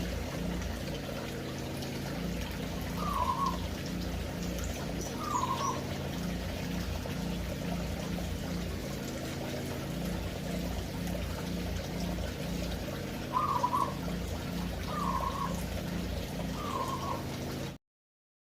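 Aviary finches giving short calls, five in all at irregular gaps, over a steady low hum and hiss. The sound cuts off suddenly near the end.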